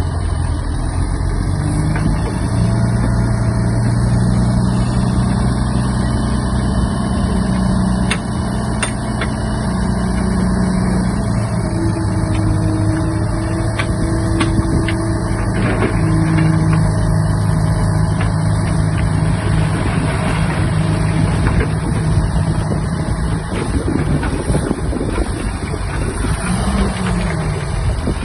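Shantui DH17-C3 bulldozer's diesel engine running steadily, its pitch stepping up and down as the machine works, with a few sharp knocks.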